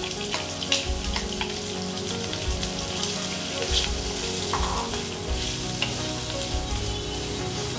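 Chopped onions sizzling as they hit hot oil with a mustard-seed and curry-leaf tempering in a heavy black pot, stirred with a wooden spatula that clicks and scrapes against the pot.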